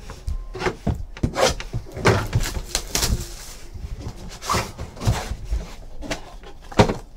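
Trading-card boxes and packaging being handled on a tabletop: a run of taps, knocks and rustles, with a sharp knock at the start and another near the end.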